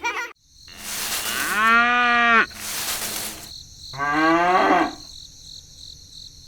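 Cow mooing: two drawn-out calls, the second shorter and rising in pitch, with brief bursts of hiss between them.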